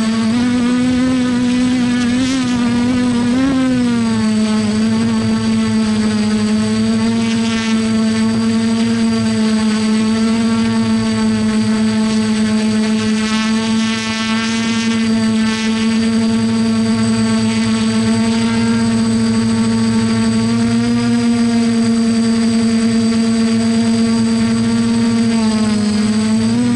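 A small drone's electric motors and propellers whining at a steady pitch. The pitch wavers briefly about two to four seconds in and again just before the end.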